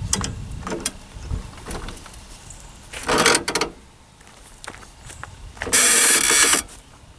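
Ratcheting and rattling of car-rack hardware while a bicycle and kayak are being secured on a car. Scattered small clicks are followed by two rasping ratchet pulls, about three seconds in and louder near the six-second mark.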